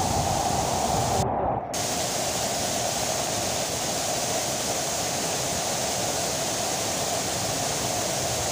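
Waterfall rushing steadily. About a second and a half in, the hiss briefly drops out and the low rumble is weaker afterwards.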